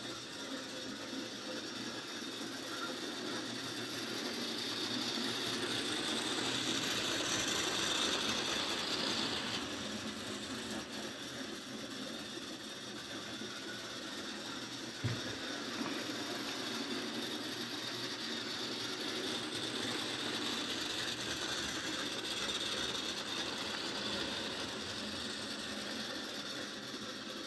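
Model railway locomotive running on sectional track, its small electric motor and gears whirring and its wheels clattering over the rails. It grows louder for a few seconds early on, and there is one sharp click about halfway through.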